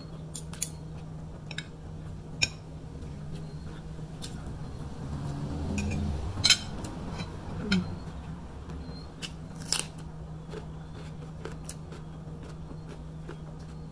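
Eating sounds: chewing, with scattered sharp clicks of a metal spoon and fork against a ceramic plate, over a faint low steady hum.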